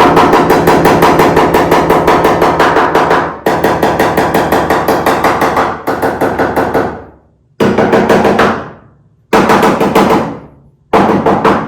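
Rapid hammer blows on a rusty sheet-metal body panel of a Chevelle, about six or seven a second with a metallic ring. They come in two long runs, then three short bursts with pauses between. This is hammer-testing the panel for rust, which the worker reckons it sounds like.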